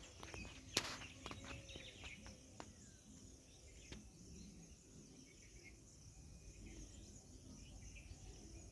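Faint pond-side outdoor ambience: a steady high hiss of insects with a few soft bird chirps, and a sharp click about a second in.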